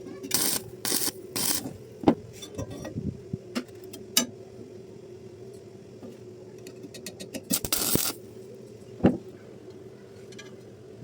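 Welding arc struck in short bursts for tack welds: three quick hissing bursts, then a longer one later, with sharp metallic clicks and taps in between over a steady electrical hum.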